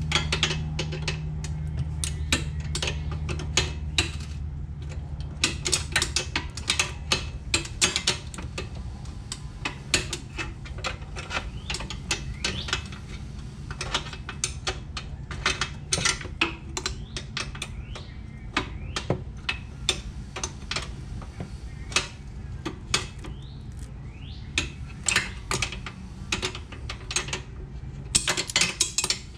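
A hand wrench clicking and clinking against the nut and metal in rapid, irregular clusters as it is worked in small turns to loosen the swing-arm adjusting bolt on a Yamaha Warrior 350 ATV. A steady low hum runs underneath, strongest at the start.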